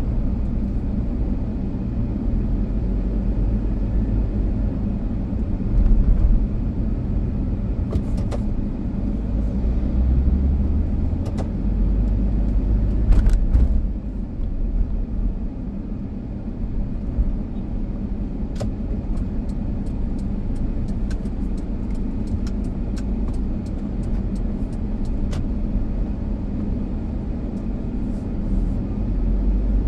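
Car driving along a road: a steady low rumble of engine and tyres, with scattered small clicks and knocks throughout.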